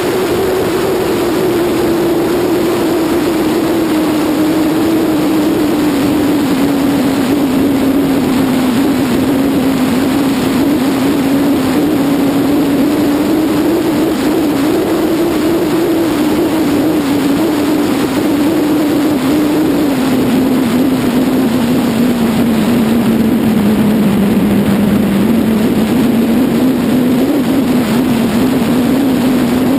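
BMW F800GS's 798 cc parallel-twin engine running on the road under wind rush on the microphone. The engine note falls over the first several seconds as the rider eases off, holds fairly steady, drops lowest a few seconds before the end, then rises again.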